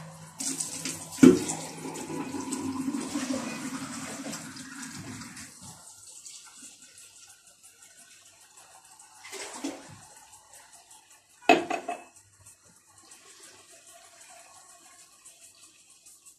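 Water running from a kitchen tap into a container for about five seconds, with a sharp knock about a second in. Later come two short clatters of a vessel being handled at the sink.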